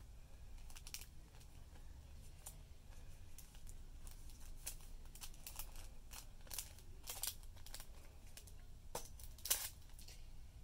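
A clear plastic sleeve crinkling and crackling as a stack of sticker sheets is slid into it and handled, in many short irregular crinkles, with a louder crackle near the end.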